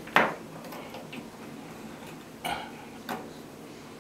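Three sharp metal clicks as a chrome cross-head shower tap handle and its cover are handled and fitted onto the tap: the loudest a moment in, then two more close together near the end.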